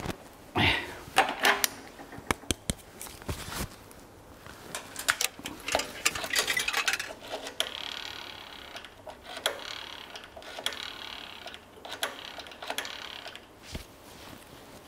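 Irregular clicks, knocks and clatter of small hard objects being handled, with a stretch of hiss-like rasping noise in the middle.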